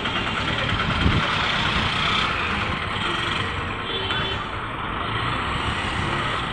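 Busy market street traffic noise: a truck engine running close by at first, with other vehicle engines in the background, and a single knock about a second in.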